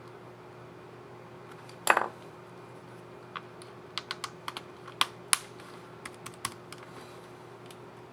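Asus ROG Zephyrus G14 laptop keyboard key clicking as a replaced keycap is fitted onto its scissor mechanism and pressed: one loud snap about two seconds in, then about a dozen lighter, irregular key clicks.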